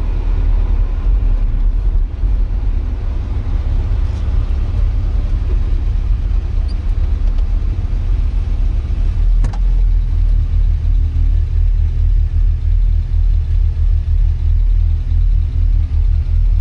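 Porsche 924's 2.0-litre four-cylinder engine running, heard from inside the cabin as a heavy low rumble. From about halfway through the rumble pulses evenly, and there is a single sharp click.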